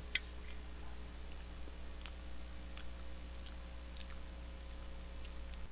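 A man eating: chewing, with a sharp click just after the start and a few faint scattered clicks from spoon and fork on a takeout food tray, over a steady low hum.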